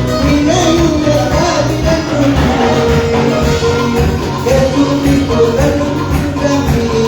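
Live church worship band playing a Latin-style praise song, with held melody notes over a steady bass beat.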